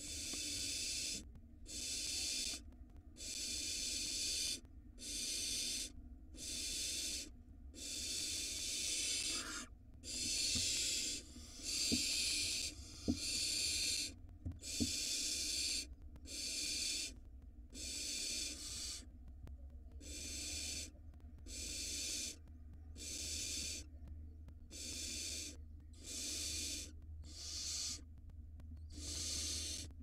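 Barn owl nestlings' begging calls: drawn-out rasping hisses, repeated about every second and a half, several chicks overlapping. The calling grows longer and louder in the middle, with a few soft knocks.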